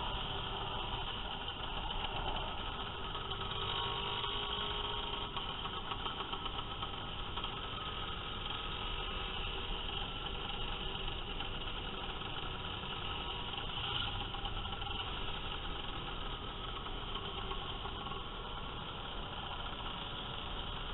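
Several motor scooters' small engines running together at low speed in slow-moving traffic: a steady, mixed engine drone with no sharp revs.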